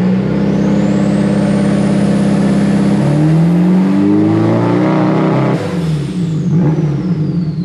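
Turbocharged SR20DET engine of a Nissan 240SX S14 pulling under load on a dyno, its revs climbing with a rising turbo whine. A little over five seconds in the throttle closes, and the turbo whine falls away as the engine drops back.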